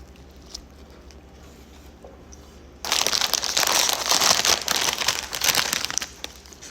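Food packaging, a paper wrapper or chip bag, crinkling and crumpling close up, starting suddenly about three seconds in and lasting about three seconds.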